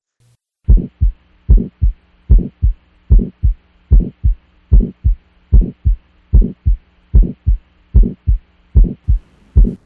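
Heart sounds heard through a stethoscope at the aortic area: a steady lub-dub, the first and second heart sounds in twelve even pairs at about 75 beats a minute, starting just under a second in. A faint steady hum lies under the beats.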